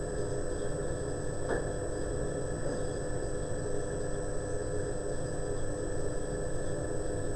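Steady background hum and hiss of room tone, with a faint high whine running through it and one faint tick about a second and a half in.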